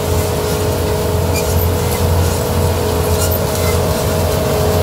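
Self-propelled groundnut harvester running steadily as it drives along picking up windrowed groundnut plants: a low engine hum with a constant whine above it.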